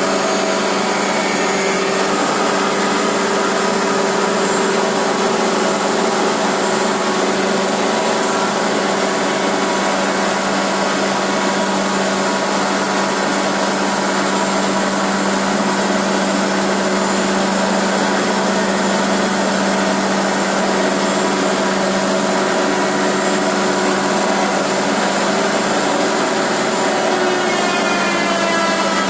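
Pade multi-spindle through-feed milling and sanding machine running steadily, a dense machine whine with several held tones over a broad hiss; some of the tones rise in pitch near the end.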